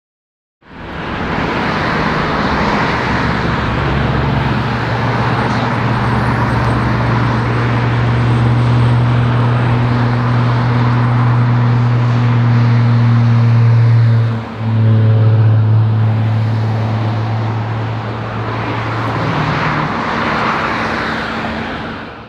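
Diesel locomotive engine running with a steady low drone, over road traffic noise. The drone dips briefly about two-thirds of the way through and drops away near the end.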